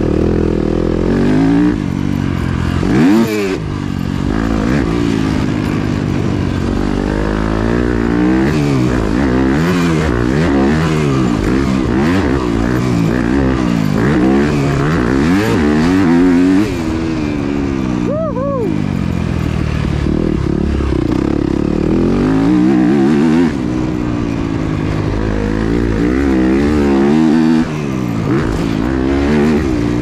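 Yamaha YZ250F four-stroke single-cylinder motocross engine under hard riding. Its note climbs again and again as it pulls through the gears, then falls away, with the throttle shut abruptly several times.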